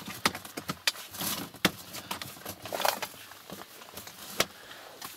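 Irregular handling noises: sharp clicks and short rustles of plastic as gear is rummaged through for a plastic bag.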